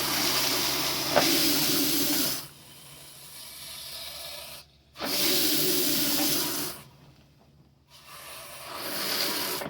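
RV toilet being flushed with pink antifreeze from the water pump during winterization: the water valve sprays into the bowl in three rushes, the first two longer and louder, the last starting about eight seconds in.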